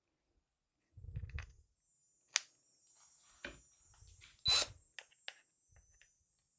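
Handling noises of wood screws and lock hardware: a soft low bump about a second in, then a few sharp clicks and light taps, the loudest about four and a half seconds in, over a faint steady high hiss.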